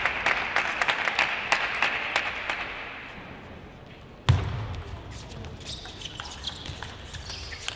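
Arena applause dying away over about three seconds. Then, a little after four seconds, a single sharp thud followed by faint scattered knocks and crowd noise.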